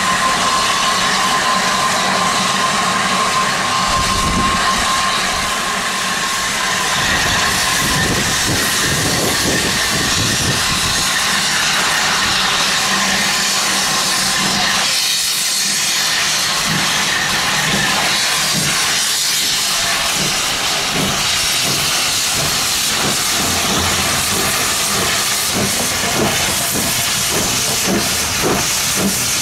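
Steam locomotive with a loud, steady hiss of escaping steam. A faint steady tone fades out over the first few seconds, and repeated low knocks follow from about four seconds in.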